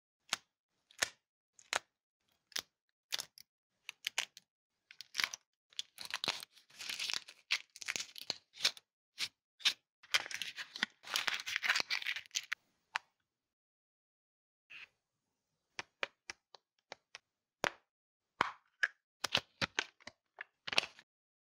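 Foil wrapper of a Kinder Surprise chocolate egg being handled and peeled off, with crinkling and tearing in two longer bursts and many sharp clicks and taps in between. Near the end, more crinkling as a folded paper leaflet is opened out.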